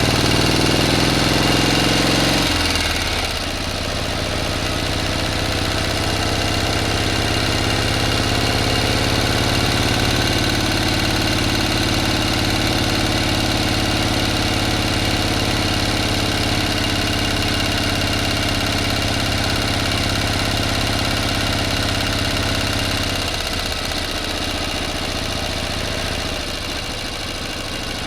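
A motor or engine running at a steady idle. Its note shifts and eases slightly about two and a half seconds in, then holds. Some of its tone drops away and it gets a little quieter after about twenty-three seconds.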